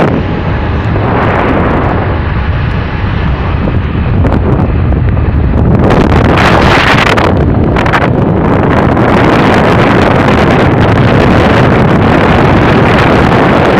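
Wind buffeting the microphone over the low rumble of a moving vehicle, getting louder about four seconds in and staying loud.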